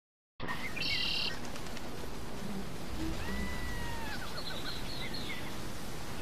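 Wild birds chirping and whistling over a steady low outdoor noise; the sound cuts in abruptly after a moment of silence.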